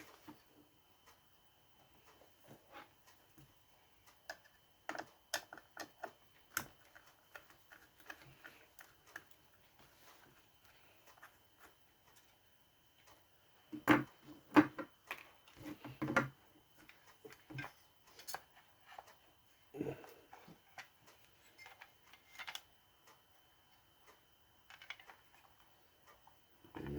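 Irregular clicks, taps and a few louder knocks of hand tools and small plastic and metal parts being handled while a cordless circular saw is taken apart, with a cluster of louder knocks about halfway through.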